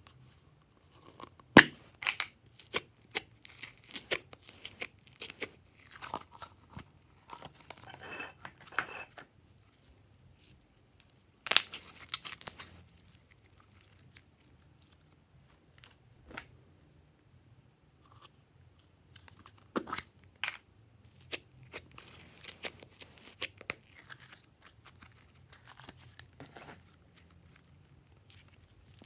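Glossy slime being pulled from its tub and stretched and squished by hand, giving sticky crackles and sharp pops in clusters, with quieter pauses between them.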